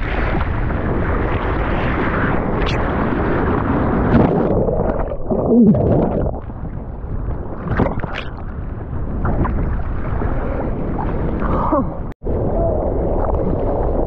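Ocean whitewater rushing and churning around a surfboard-mounted camera as the board pushes through broken surf, with heavy water and wind noise on the microphone. Bubbly gurgling sounds around the middle as the camera goes into the foam, and the sound cuts out for an instant near the end.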